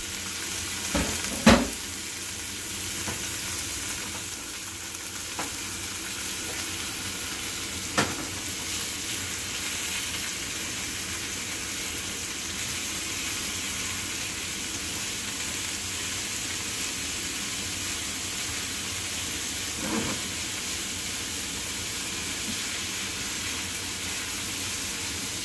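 Yellowtail (hamachi) fillets sizzling in olive oil in a nonstick frying pan on medium heat, a steady hiss. A few sharp knocks of metal tongs and pan as the fillets are moved; the loudest comes near the start.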